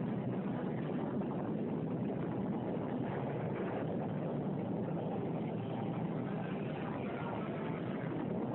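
Steady, dense rumbling rush of an atomic test's blast wind, with no clear pitch and no single strike standing out.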